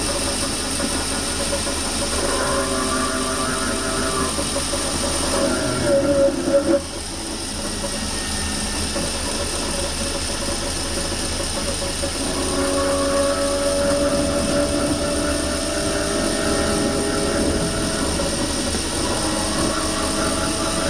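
Traction motors of a DART 8100-class electric train whining, several tones together that waver, fade out about six to seven seconds in and build up again about twelve seconds in. This is the motor noise heard on wet rails with low adhesion.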